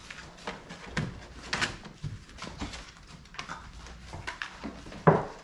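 Young puppies scrabbling about in a plastic kiddie pool: a steady run of small scratches, clicks and rustles from paws and claws on the plastic and puppy pads, with one louder short sound near the end.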